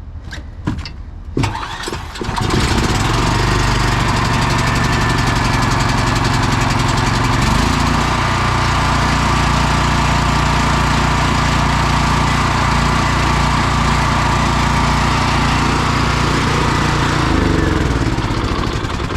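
Small gasoline engine of a portable generator being pull-started: a few short pulls, then it catches about two seconds in and runs steadily. Its note changes about seven seconds in, and it falls away near the end.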